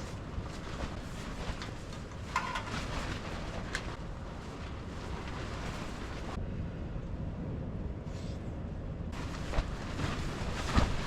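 Strong wind buffeting the microphone: a steady low rumble with a few short knocks and rattles.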